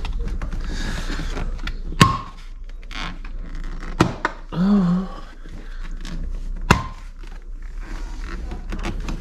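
Plastic centre-console trim around the gear lever of a Honda S2000 being pulled up by hand: three sharp clicks as its retaining clips let go, with rustling scrapes of plastic between them.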